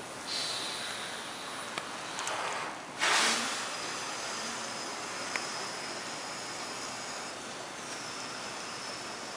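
Several people breathing slowly and audibly in and out together through their mouths, a steady hiss of air, as a paced eight-count inhale and eight-count exhale breathing exercise. A louder rush of breath comes about three seconds in.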